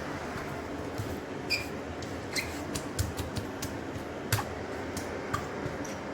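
Dehumidifiers running with a steady whirring hum, while short clicks and a few brief squeaks come and go over it.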